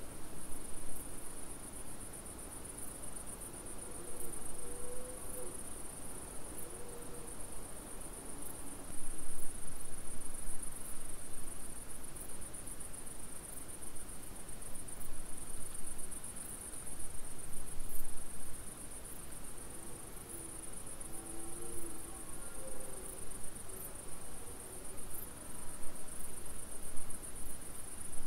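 Crickets chirring continuously in a high, steady trill, with faint wavering low tones twice in the background.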